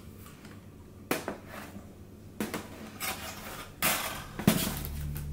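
Thin metal camping-stove parts being handled on a table: about six light metallic clinks and clatters spread over four seconds, the last the sharpest.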